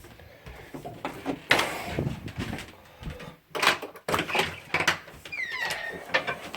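Irregular clicks, knocks and scrapes of small parts and hand tools being handled on a workbench, loudest about a second and a half in and again at about three and a half seconds. About five seconds in comes a short high chirp that slides down in pitch and levels off.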